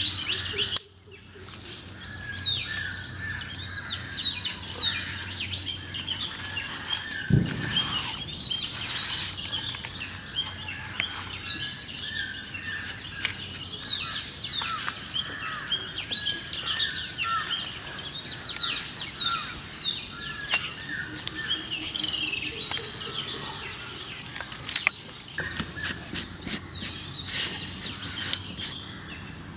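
Birds chirping and calling continuously: a dense run of short, quick chirps from several birds. A single dull thump comes about seven seconds in.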